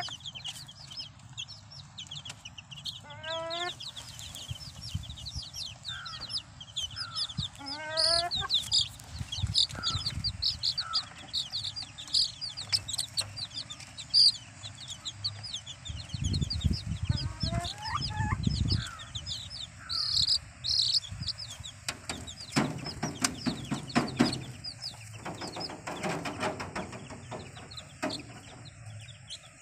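Country chicken (nattu koli) chicks about two weeks old peeping continuously in short, high chirps, with a few lower rising calls among them. Past the middle come a spell of low scuffling and then a run of sharp knocks or taps.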